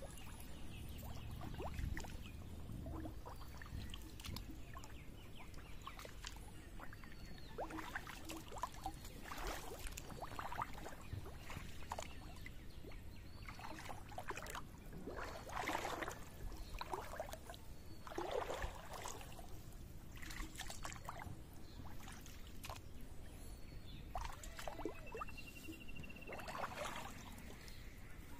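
Water sloshing and splashing in short, irregular bursts. Short high chirps recur every couple of seconds over it, with a quick trill near the end.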